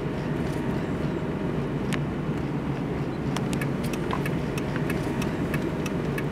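Car cabin noise while driving: a steady low engine and road rumble, with scattered small clicks and rattles that come more often in the second half.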